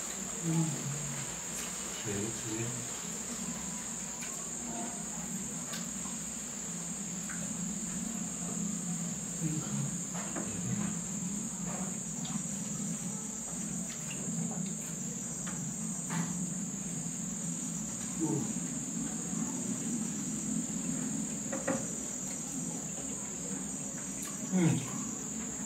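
Steady high-pitched insect chorus, crickets trilling without a break, over a low hum with occasional soft clicks.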